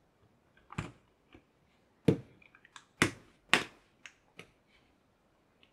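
Hands handling the vape mod and its packaging: a string of sharp clicks and knocks, four of them louder, with lighter ticks in between, stopping near the end.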